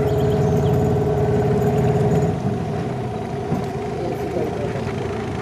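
Outboard motor of a small riverboat running steadily at low speed, a constant low hum with a steady drone above it. About two seconds in it gets a little quieter as the higher drone fades.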